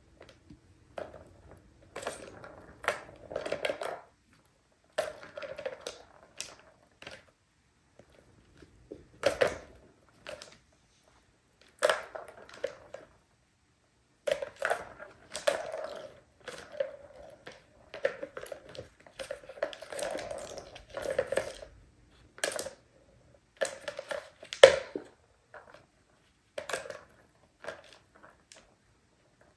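Plastic balls rolling and rattling around the circular tracks of a three-tier cat toy tower, with clicks and knocks of paws batting at the plastic, in irregular bursts with short pauses between.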